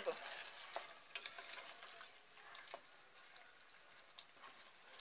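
Wooden spatula stirring mutton in a pot: a faint sizzle with a few soft clicks and taps scattered through.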